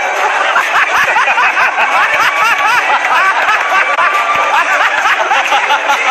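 Studio audience cheering and laughing, many voices overlapping.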